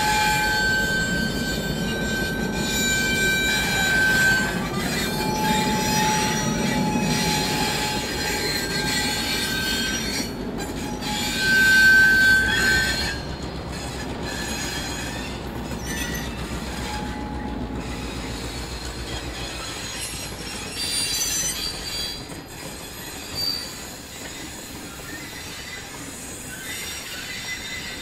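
Passenger carriages and diesel locomotives rolling past, with the low rumble of the train and intermittent high-pitched metal squeals from the wheels, the loudest about twelve seconds in. After about thirteen seconds the rumble is quieter, with a few short squeals near twenty-one and twenty-three seconds.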